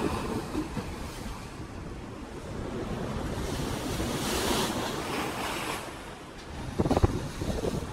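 Rushing, splashing water of a ship's bow wave, with wind buffeting the microphone. The hiss of spray swells about halfway through, and gusts thump on the microphone near the end.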